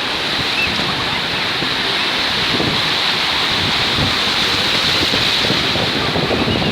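Black Sea surf washing onto the beach in a steady rush, with wind buffeting the microphone.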